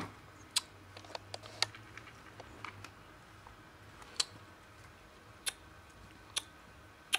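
Cats crunching dry kibble: sharp, irregular crunches, several close together in the first two seconds, then one every second or so.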